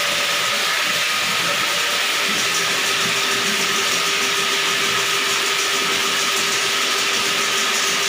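Electric drain-cleaning machine (drain auger) running steadily as its spinning cable is fed into a clogged floor drain to clear the blockage: an even motor noise with a faint steady whine.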